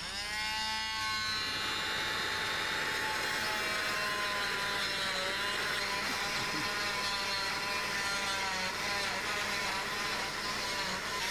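Oscillating cast saw starting up, its whine rising in pitch over the first second. It then runs steadily as it cuts through a child's arm cast, the pitch dipping slightly now and then as the blade bears on the cast.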